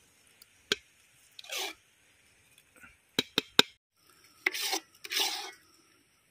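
A spoon scraping thick brownie batter out of a bowl into another pan, a few scrapes with a sharp knock about a second in and three quick knocks of the utensil against the vessel in the middle.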